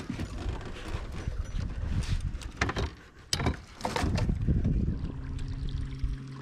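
Several sharp knocks and clatters from gear handled on a small fishing boat. From about five seconds in, an electric trolling motor starts a steady low hum.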